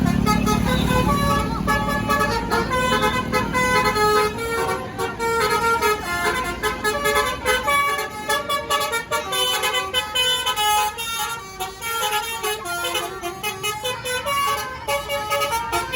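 Tour bus 'telolet' multi-tone horn playing a long melodic tune of stepped notes, over the low rumble of the bus engine, which fades about halfway through.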